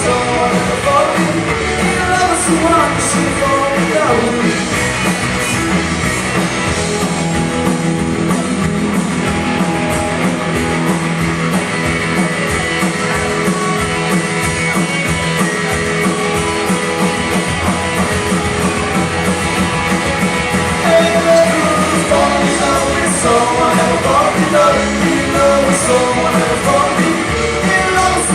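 Live rock band playing a punk-rock cover with electric guitars, bass, drums and lead vocals. The singing is clearest near the start and again in the last third, with a stretch in the middle where the instruments carry it.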